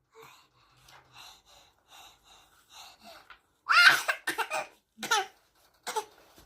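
A baby's faint, short breathy pretend coughs, repeated every half second or so, then from about three and a half seconds in a few louder bursts of laughter.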